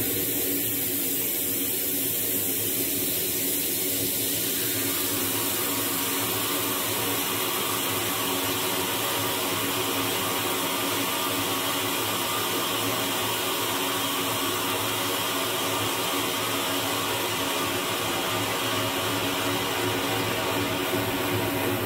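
Dense, steady electronic noise drone from the frakMSP software synthesis suite: a thick, even hiss over a low hum with no clear beat. Its middle range thickens about four seconds in.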